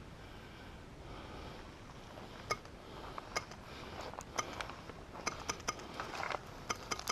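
Airsoft fire: an irregular string of sharp clicks with a slight ring, about a dozen over the last four and a half seconds, starting about two and a half seconds in after a low hum.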